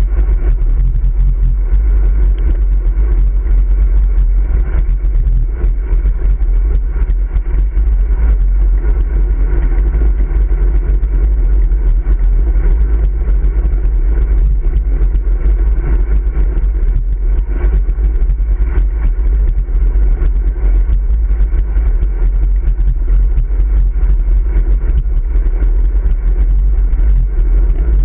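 Steady wind rumble on the microphone of a camera mounted on a moving road bike's handlebars, with road noise from the tyres rolling on asphalt.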